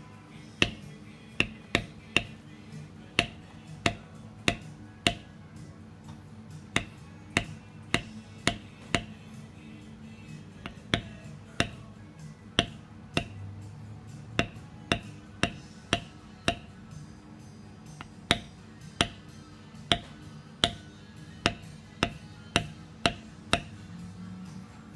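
Mallet striking a metal leather-stamping tool, tapping the design into a carved leather holster flap on a stone slab: sharp, regular taps about one and a half to two a second. Quiet background music underneath.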